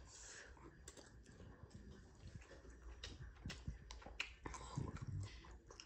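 Quiet eating sounds: instant noodles being chewed, with a few short irregular clicks of a fork in the noodle cup.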